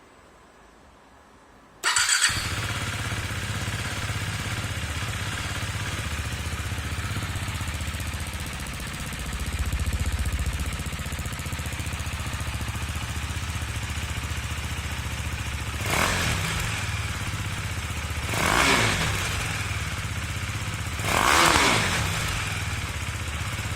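KTM 390 Duke's single-cylinder engine breathing through an Akrapovič slip-on silencer. It starts suddenly about two seconds in and settles into a steady idle. Near the end the throttle is blipped three times, each rev rising and falling back to idle.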